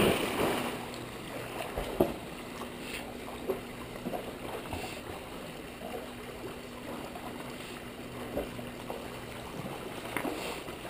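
Pool water splashing as dogs swim through it, loudest at the start, then settling into quieter sloshing and lapping with a few small knocks.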